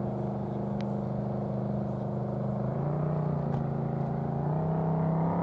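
An engine running with a steady drone, its pitch dipping slightly about halfway through and climbing again near the end.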